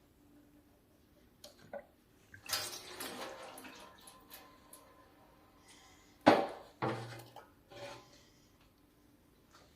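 Metal clinking and clanking, as of tools or parts being handled, in several separate knocks; the loudest knock comes about six seconds in.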